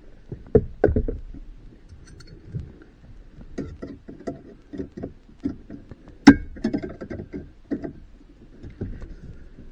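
Irregular clicks, taps and knocks from hands-on installation work with parts and tools, loudest a sharp knock about six seconds in.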